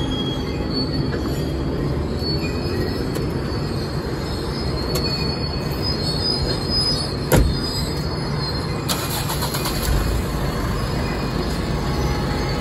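Freight train of loaded open wagons rolling past: a steady rumble of steel wheels on the rails, with a faint high wheel squeal. There is one sharp knock a little past halfway.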